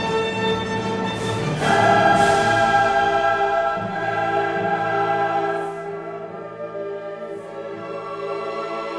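Background music: a choir singing sustained chords over an orchestra, swelling louder about one and a half seconds in and softening in the second half.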